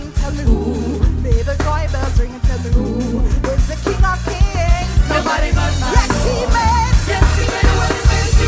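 Upbeat gospel band music with electric bass, drums and keyboards playing a steady groove.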